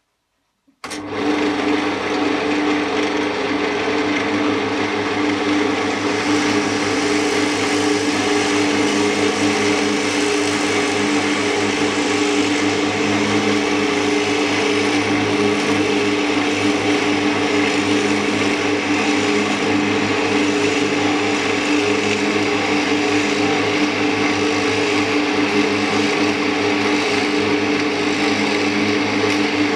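Wood lathe starting about a second in and then running steadily with a constant hum, a drill bit in its headstock chuck boring into a turned wooden knob fed in by the tailstock handwheel.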